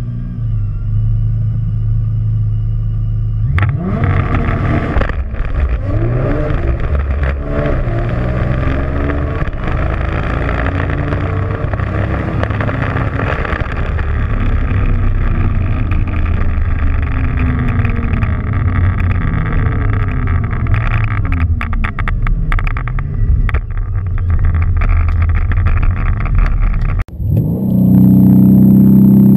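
A heavily modified twin-turbo V6 Nissan GT-R engine is held at about 5000 rpm on launch control, then launches about three and a half seconds in. It pulls hard with the revs climbing and dropping at each upshift as the car reaches well over 170 mph. Near the end the sound cuts to a Mercedes C63 AMG's twin-turbo V8 holding steady revs in race-start launch mode.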